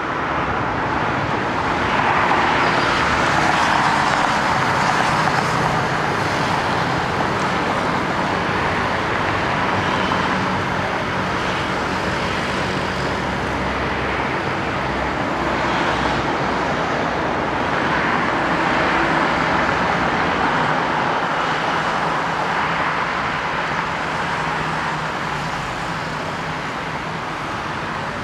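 Jet airliner's twin engines running on the runway, a steady rushing noise that swells slightly twice.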